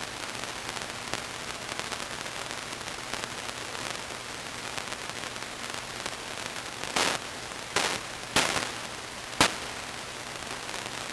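Steady background hiss, with four short knocks or bumps in quick, uneven succession about seven to nine and a half seconds in, the last one the sharpest.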